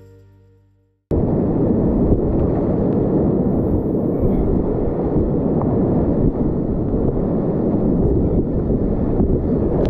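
Whitewater rapid rushing close around a kayak paddling through it, a loud, steady, low rush that cuts in suddenly about a second in as the music before it fades out.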